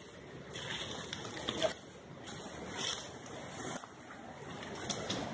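Footsteps and rustling through dry leaf litter and twigs on the forest floor, swelling and fading with each step, with a few sharp crackles.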